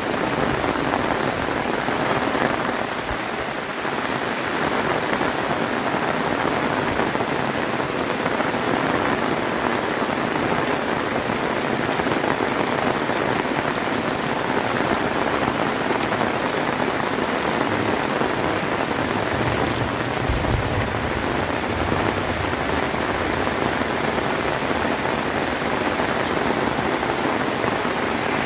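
Heavy tropical rain falling steadily, a dense, even downpour. A brief low rumble comes about two-thirds of the way in.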